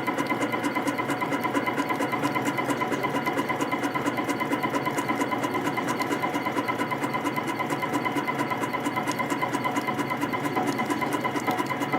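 CNC spring coiling machine running steadily while forming fine 0.15 mm wire compression springs: a constant motor and servo hum with a fast, even ticking, several beats a second, as each spring is coiled and cut.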